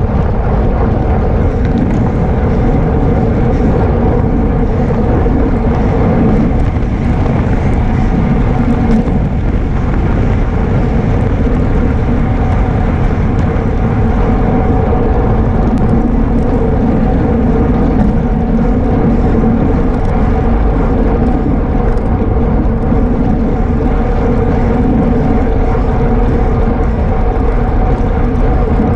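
Steady wind rush and road noise on a racing cyclist's camera microphone while riding at speed, loud and unbroken, with a low steady hum running through it.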